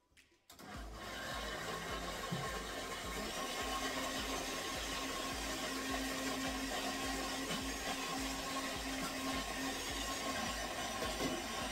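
Countertop blender starting about a second in and running steadily, grinding peeled beans and peppers with water into a smooth batter.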